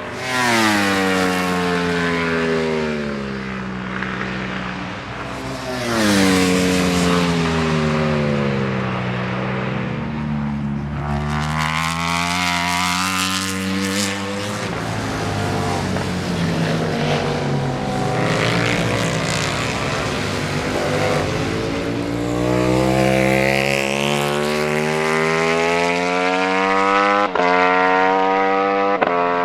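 Ducati Panigale V4 superbikes' V4 engines at racing speed, bikes going by one after another. The pitch drops sharply as a bike comes in near the start and again about six seconds in, and the engine notes climb again later as the bikes accelerate.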